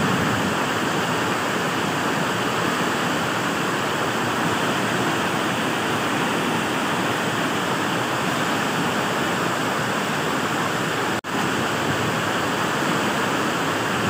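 Steady rush of the high Bogatha waterfall in heavy flow after rains, broken by a split-second gap about eleven seconds in.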